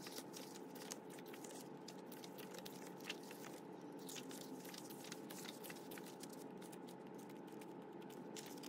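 Pages of a glossy photo book being flipped through by hand: a run of faint, quick paper rustles and soft flicks.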